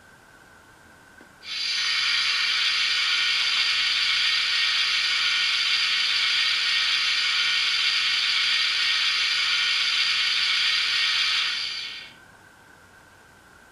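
A loud, steady hiss with a faint ringing edge from the TT-scale model railway's sound effects. It starts abruptly about a second and a half in and dies away near the end, after about ten seconds.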